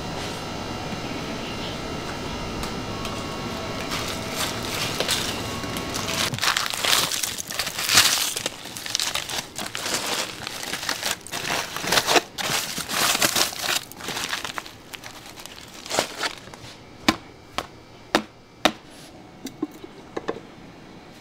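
Aluminium foil crinkling and a baked clay crust crackling and breaking away as a sealed clay pot is unwrapped, dense for several seconds after a stretch of steady rushing noise, then a few separate sharp clicks and knocks near the end.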